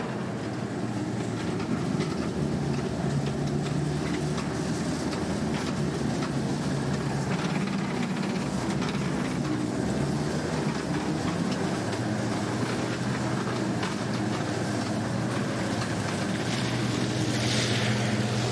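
Tracked all-terrain vehicle under way, its engine giving a steady, even drone with a light clatter running through it, heard from riders on top of the hull.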